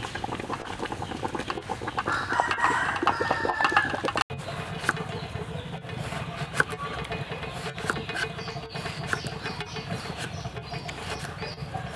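Chickens clucking, then from about four seconds in a kitchen knife slicing through eggplant and tapping on a cutting board in scattered sharp ticks.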